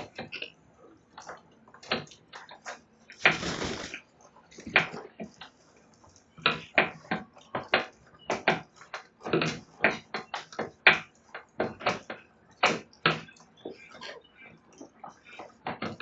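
Sulphur-crested cockatoos chewing the wooden verandah rail with their beaks: irregular sharp cracks and snaps of wood, coming several a second at times. One short, harsh cockatoo screech a little over three seconds in.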